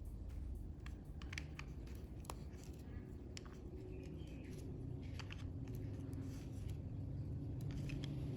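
Plastic LEGO pieces clicking irregularly as they are handled and pressed together, over a low steady rumble.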